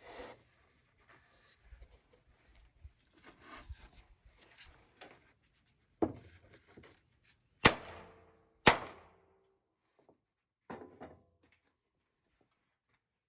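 Sharp knocks on hardwood: light handling noise, then three loud blows about six, seven and a half and eight and a half seconds in, the last two ringing briefly, and a softer knock near eleven seconds. They are the sound of old-glued joints in a cherry bed headboard being knocked apart.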